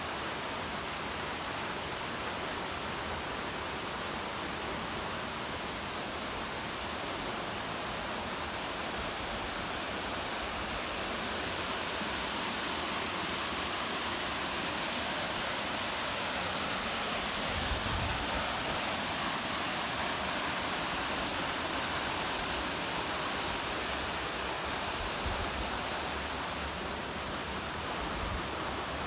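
Waterfall: a steady rush of falling water that grows a little louder through the middle and eases back toward the end.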